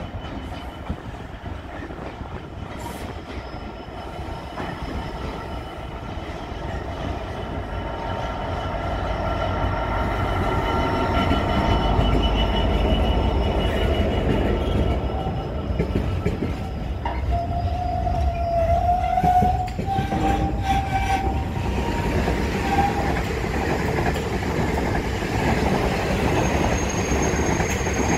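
Class 66 diesel freight locomotive with its two-stroke V12 engine, growing louder over about twelve seconds as it approaches and passes close. A long rake of container flat wagons follows, rolling by with steady wheel and rail noise and a wavering wheel squeal partway through.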